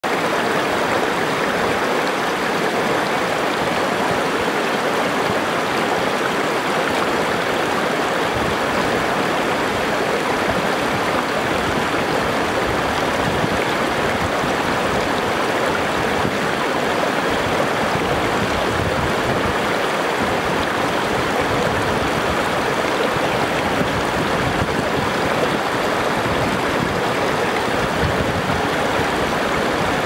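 Shallow rocky mountain stream rushing over rocks and small rapids, a steady full rush of water. Wind buffets the microphone now and then, adding a gusty low rumble underneath.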